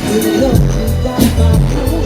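Live Eurodance song over a concert PA: heavy bass beat and synths, between sung lines.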